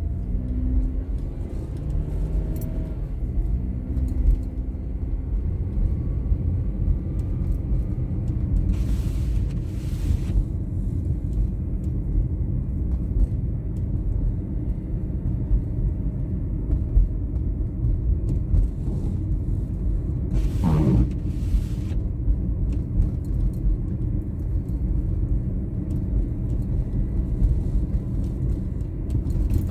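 A car driving along a snowy road, with a steady low rumble of engine and tyres. Twice, about nine and twenty-one seconds in, a brief louder rush passes, the second with a falling pitch.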